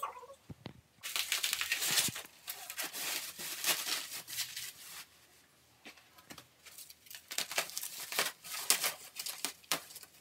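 Plastic bubble wrap crinkling, rustling and tearing as it is pulled off a stunt scooter, in two spells of dense crackling with a short lull around the middle.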